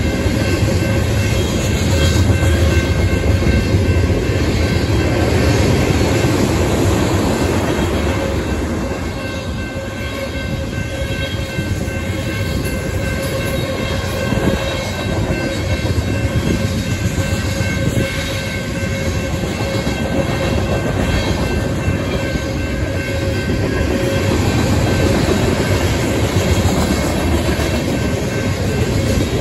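Mixed freight train of tank cars, covered hoppers and flatcars rolling steadily past, a continuous rumble with the wheels clicking over the rail joints. A few steady high tones ride on top, and the sound eases a little about ten seconds in before building again.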